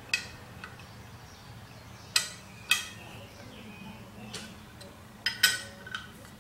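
A handful of sharp metallic clinks at irregular intervals, each ringing briefly: a steel hex key working socket head cap screws on an aluminium motor adapter plate.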